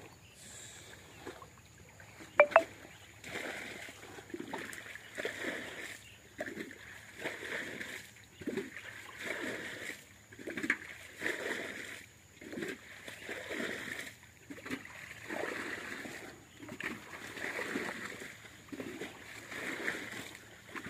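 Water and mud splashing and sloshing in a shallow, muddy irrigation channel, coming in short irregular bursts about once a second. A sharp double knock about two and a half seconds in is the loudest sound.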